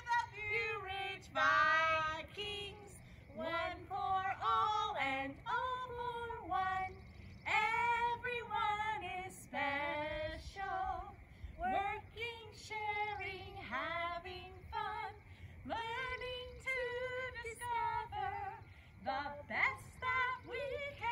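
A woman singing a melody, with held notes that slide between pitches and short breaks between phrases, and no instruments heard.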